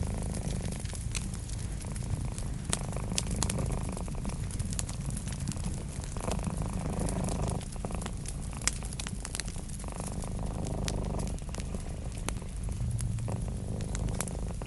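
A cat purring steadily under the frequent pops and snaps of a crackling wood fire. Two brief swells of muffled noise come about halfway through and again a few seconds later.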